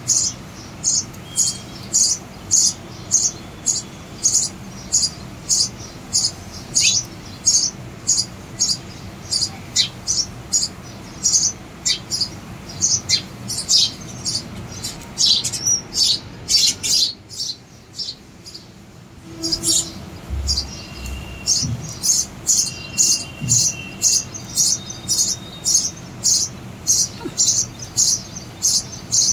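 Sparrows chirping: a steady run of short, sharp, high chirps, about two a second. They break off for about two seconds a little past halfway, then resume with a low knock.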